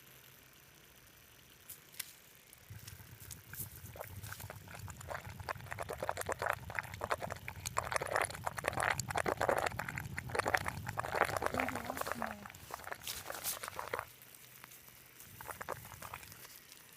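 Gurgling and bubbling from a small mud-bottomed hole in rain-soaked ground: a dense run of wet pops and clicks that builds up about three seconds in, is loudest in the middle and drops off suddenly about fourteen seconds in, with a few scattered pops after.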